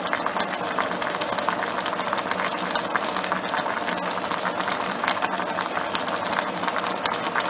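Pot of eggplant and tomato bubbling hard on the stove: a steady crackle of many small pops, over a faint steady hum.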